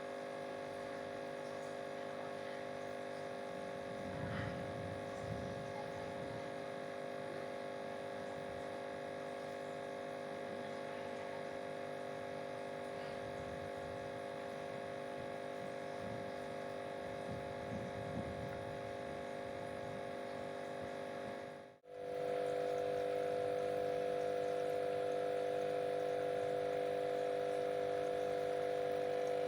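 Steady electric hum with several even tones. It dips briefly about 22 seconds in and comes back louder.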